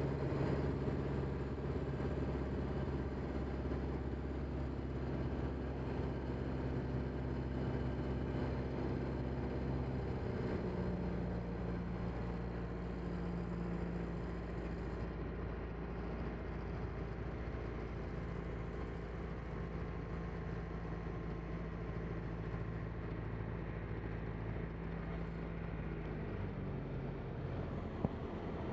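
Van's RV-4 light aircraft's piston engine and propeller droning steadily in flight, heard from inside the cockpit with air rushing past. The engine note shifts about ten seconds in and again shortly before the end, and a single sharp click comes near the end.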